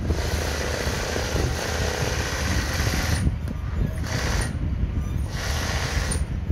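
Industrial sewing machine stitching fast during free-motion embroidery, in bursts: a run of about three seconds, then two short runs of under a second each after brief stops.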